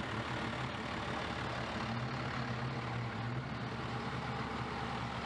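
Classic truck engine running steadily, a deep even hum with no revving.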